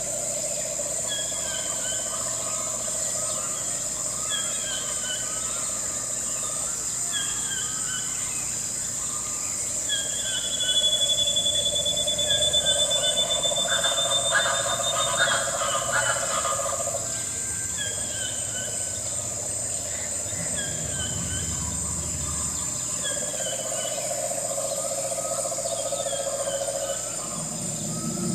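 Crickets chirring steadily at a high pitch, with a bird repeating a short falling call about once a second. It grows louder for a few seconds in the middle, where a thin high whistle is held.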